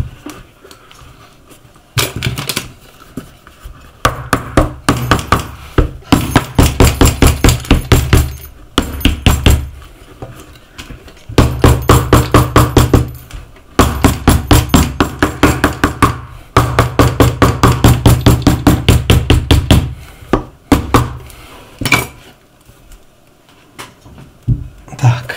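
Quick runs of hammer blows, about five a second, with short pauses between runs: a hammer tapping down a freshly glued shoe sole to set the bond.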